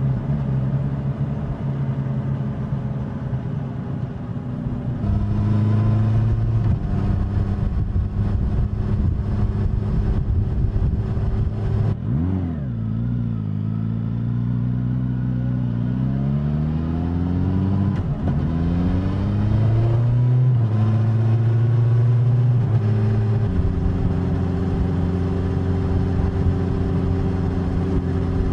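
Suzuki GSX-S1000's inline-four engine running under way, its exhaust note holding a steady pitch for stretches and stepping between gear changes. About twelve seconds in the revs drop sharply, then climb again in rising sweeps as the bike accelerates.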